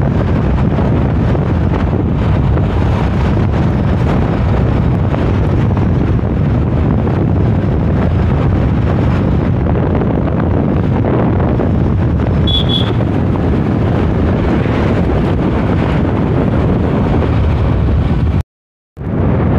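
Wind rushing over the microphone of a moving two-wheeler, mixed with its running and road noise, steady throughout. A brief high chirp comes about twelve seconds in, and the sound cuts out completely for about half a second near the end.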